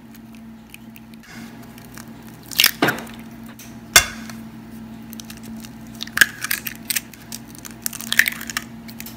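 Raw eggs being cracked one after another into a stainless steel saucepan: several sharp cracks and crunches of eggshell, the loudest about four seconds in, with shells pulled apart between them.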